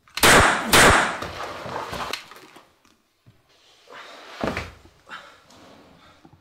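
Two close-range pistol shots in a small room, about half a second apart, ringing off over a second or so; a heavy thud follows about four and a half seconds in.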